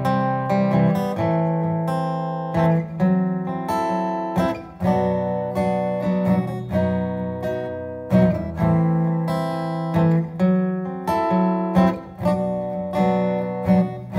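Acoustic guitar strummed in an instrumental passage between sung verses: rhythmic chords with sharp strokes about every second.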